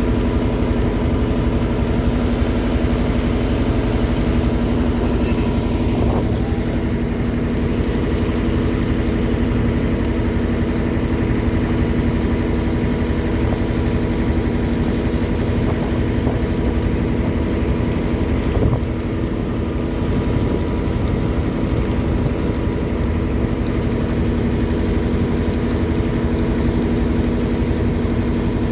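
Motorboat engine running steadily at an even speed, a constant hum with a low rumble, with a brief knock and a slight drop in level about two-thirds of the way through.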